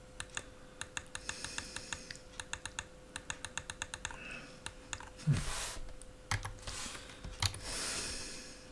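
Typing on a computer keyboard: quick, uneven runs of key clicks, with two short rushes of noise about five and eight seconds in. A faint steady tone sits underneath.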